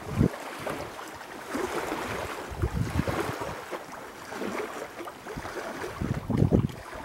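Small waves lapping and washing against a rocky limestone shore, a steady hiss of water. Wind buffets the microphone just after the start and again near the end.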